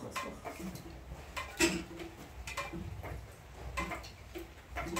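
Irregular light taps and clicks, roughly two a second and one louder knock about one and a half seconds in, over a low steady rumble.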